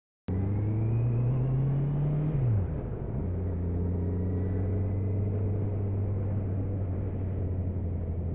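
Motorcycle engine heard from the rider's seat, running under way with road and wind noise; its revs climb, dip sharply about two and a half seconds in, then hold steady.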